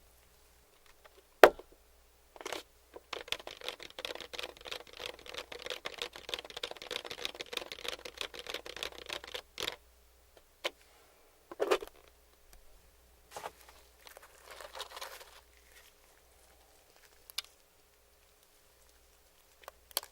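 Close-miked crunching and crackling of crispy fried-chicken coating being eaten: a dense run of small crackles lasting about six seconds, then a few separate clicks and a shorter crackle.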